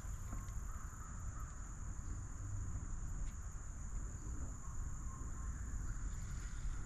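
Insects chirring steadily in one unbroken high tone, over a low rumble.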